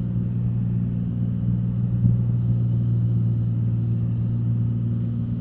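Cessna 182's piston engine and propeller droning steadily in the cabin during flight, with an even low hum that holds its pitch.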